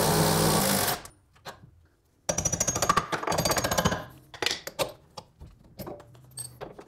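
Impact wrench run in two short bursts, hammering rapidly as it breaks loose suspension fasteners, followed by scattered light clicks.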